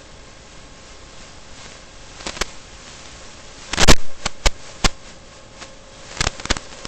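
Steady hiss with a faint steady hum, broken by irregular sharp clicks and crackles, about eight in all; the loudest is a short burst of crackle about four seconds in.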